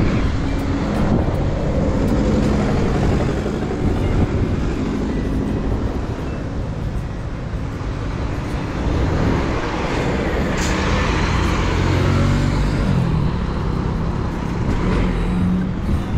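Road traffic with a tour coach's engine running close by and cars passing. The engine note falls near the end.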